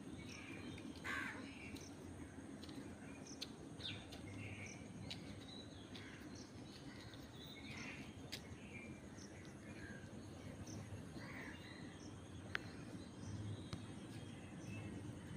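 Outdoor background with birds calling now and then, short calls scattered throughout, and a few sharp clicks, the loudest about three-quarters of the way through.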